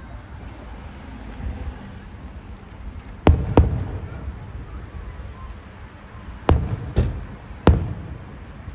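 Aerial firework shells bursting in the sky: five booms, a pair about three seconds in and three more near the end, each trailing off in a low rumble.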